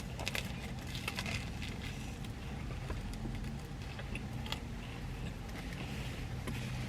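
Close-up crunching and chewing of a crusty toasted baguette sandwich, with crisp crackles bunched in the first second and a half and scattered after, over a steady low background hum.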